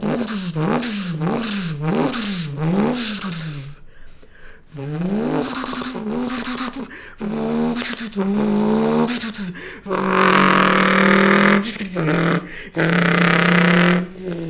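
A man imitating a car engine with his mouth: about five quick rises and falls in pitch like an engine revving up and dropping, then a rising rev that levels off into a steady drone. Near the end come two loud, buzzy, held engine drones with a short break between them.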